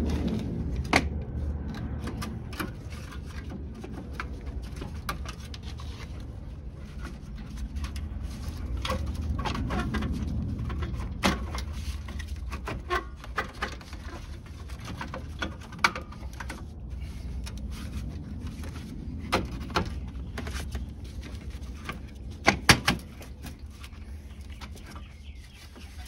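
Scattered metal clanks and clicks as a Honda Civic's upper radiator support is handled and fitted back into place. The sharpest knocks come about a second in, around eleven and sixteen seconds in, and as a quick pair near twenty-three seconds.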